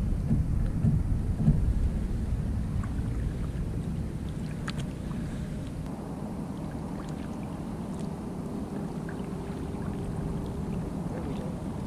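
Wind rumbling on the microphone, heaviest in the first two seconds, over light water sounds as a double-bladed kayak paddle strokes calm water. A faint steady hum sits underneath near the end.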